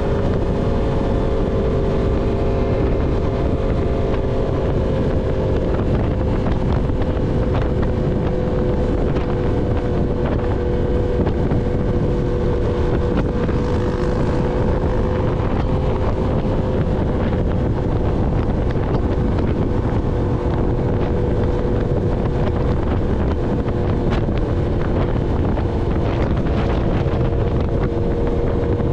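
Yamaha MT-10's crossplane inline-four engine running through an SC Project full-system exhaust at a steady cruise, under heavy wind noise on the microphone. The engine pitch eases down slightly about six seconds in, then holds steady.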